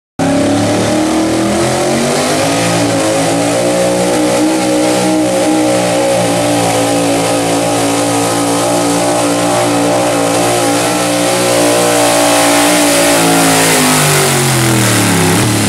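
Big-block V8 pickup running hard at high revs under load, pulling the sled down the track with a steady exhaust note. Near the end the revs fall away as the throttle is let off.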